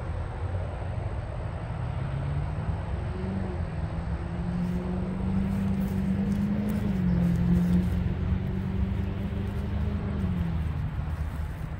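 Steady road-traffic noise, with one vehicle's engine note rising from about two seconds in, holding, and dropping away near the end as it passes.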